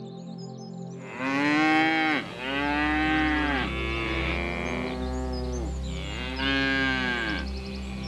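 Cattle mooing: a run of long moos, each rising and then falling in pitch, starting about a second in.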